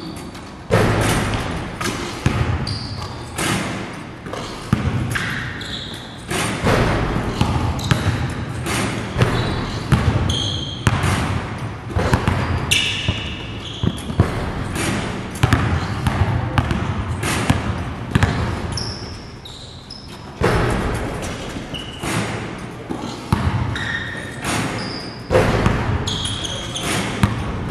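Basketballs bouncing on a gym court: many irregular sharp thuds throughout.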